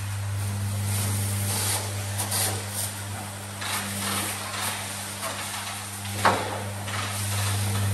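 High-pressure washer lance spraying a truck's tyres and chassis: a steady hiss of spray that swells and fades as the jet moves, over a low steady hum, with one sharp knock about six seconds in.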